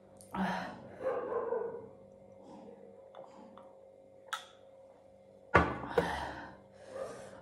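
A dog barking in a few separate bouts, the loudest about five and a half seconds in, with a short sharp click just after four seconds.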